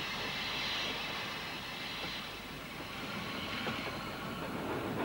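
Steam train running, a steady rushing noise that dips a little in the middle and grows again near the end.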